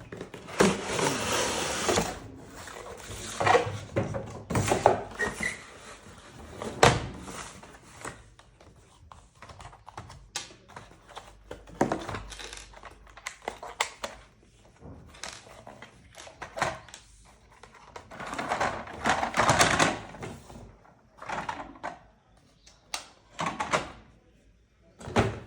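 A plastic toy train being handled, giving irregular clatter and sharp clicks with bursts of rustling.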